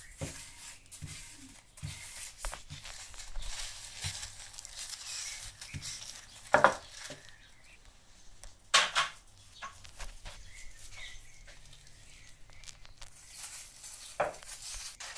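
Biscuit dough being rolled out with a wooden rolling pin on a silicone baking mat and pressed into shape by hands in disposable plastic gloves: crinkling and rustling of the gloves with scattered soft knocks and taps of the pin. Two louder knocks come about six and a half and nine seconds in.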